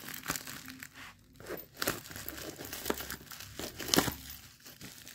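Thick bubble wrap and plastic film crinkling and crackling as they are cut with scissors and pulled open by hand, with irregular sharp crackles, the loudest about four seconds in.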